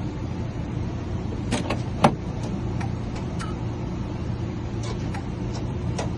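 Sharp metallic clicks of a freshly cut key going into and turning a 1986 Ford F-150 door lock, the loudest about two seconds in, over a steady low hum.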